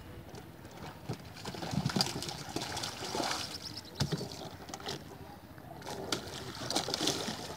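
Pond water sloshing and splashing as a person wades and tips a plastic drum into a net pen, with several louder splashes through the stretch.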